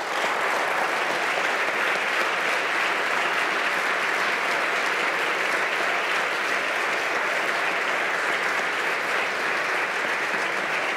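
Large audience of legislators applauding steadily, starting suddenly and lasting about eleven seconds.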